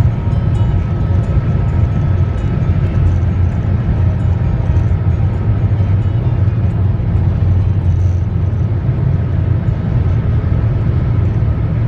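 Steady low rumble of tyre and engine noise inside a car's cabin while driving at highway speed.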